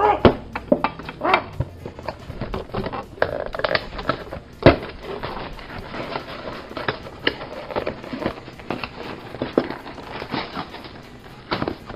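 Irregular knocks and clatter of things handled on a tabletop: a ceramic butter dish lid set down with a sharp clink at the start, then a cardboard fudge-kit box picked up and moved about, with one loud knock about halfway through.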